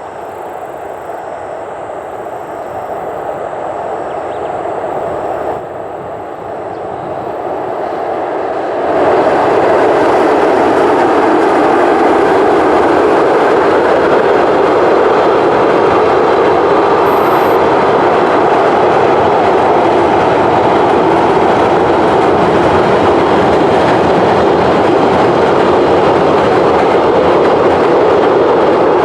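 Freight train hauled by an EF66 electric locomotive crossing a steel railway bridge: the noise grows over the first nine seconds as the train approaches, then holds as a loud, steady rumble of the wagons passing over the bridge.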